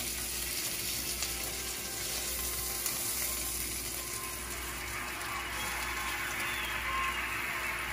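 Oil sizzling steadily in a frying pan, growing louder about five seconds in, with a few light clicks.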